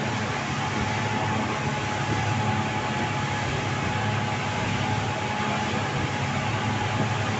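Speedboat running at speed: a steady engine drone under a rushing wash of wind and water, with a faint steady whine on top.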